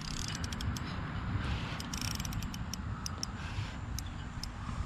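Steady low rumble of wind buffeting the microphone outdoors, with scattered light clicks throughout.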